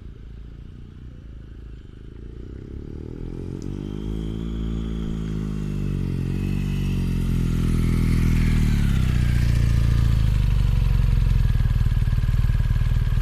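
BMW R1200GS boxer-twin engine running through an aftermarket Chinese exhaust. Its pitch swells up and back down around the middle, and the sound grows steadily louder into a deep, steady drone near the end.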